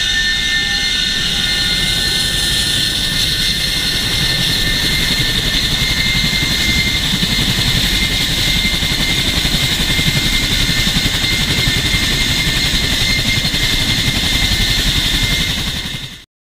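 CH-47 Chinook helicopter running on the ground with its rotors turning: a steady high turbine whine over the fast beat of the twin tandem rotors. The sound fades out quickly near the end.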